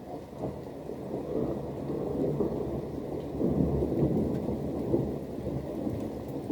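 Rolling thunder with rain, a deep rumble that builds over the first few seconds, is loudest around the middle and eases slightly near the end.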